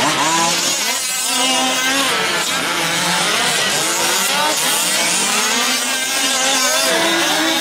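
Several 1/5-scale gas RC trucks' small two-stroke engines revving up and easing off as they race, their pitches rising and falling over one another.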